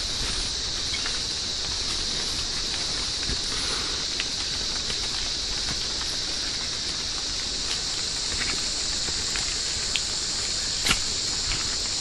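Steady high-pitched insect chorus of the tropical rainforest, with scattered light clicks and one sharper click near the end.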